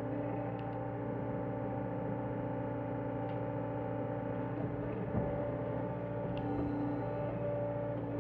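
Diesel engine of a John Deere 325G compact track loader running steadily, an even drone with a few faint clicks.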